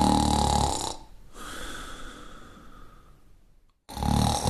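A person snoring: a loud, low, pulsing snore, then a softer breath with a faint whistle, and after a short pause another loud snore begins near the end.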